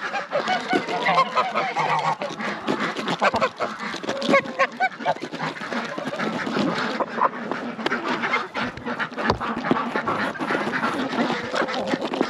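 A flock of domestic geese and ducks calling, many honks and quacks overlapping without a break.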